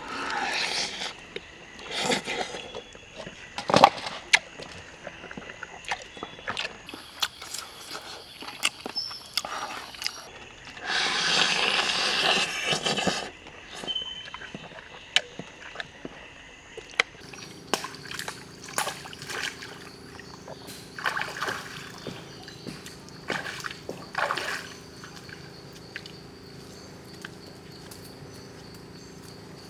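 Close-up eating sounds: chewing, smacking and crunching on grilled crocodile meat and skin, with many sharp clicks and short crackly bursts. From about two-thirds of the way through it settles into a steady low hum with only scattered clicks.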